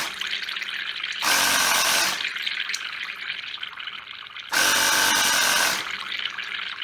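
Compressed air escaping from a submerged, fiberglass-resin-sealed 3D-printed tank and bubbling up through a jar of water, leaking where the brass fitting meets the plastic. The bubbling surges louder three times: at the start, about a second in, and again past four and a half seconds.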